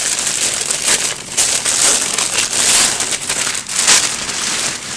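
White paper packing crinkling and rustling as it is unwrapped by hand from an item out of the box, in irregular swells.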